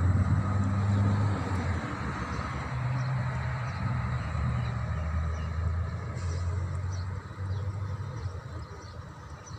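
Low rumble of a motor vehicle's engine running close by, dying away toward the end.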